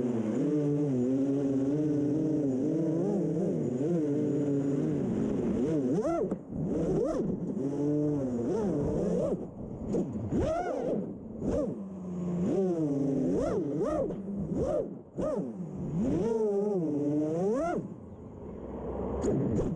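Brushless motors and props of a 6-inch FPV freestyle quadcopter (Emax ECO 2207 2400kv) whining, the pitch wavering up and down with the throttle. After about six seconds come repeated sharp throttle chops, the sound dropping away and then shooting back up in pitch.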